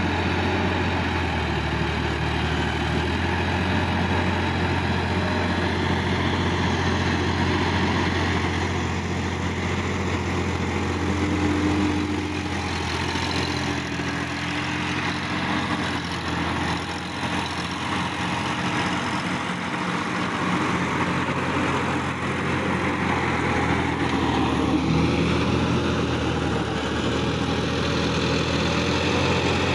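Sonalika DI-50 RX tractor's diesel engine running steadily as the tractor works its way through a flooded, muddy field.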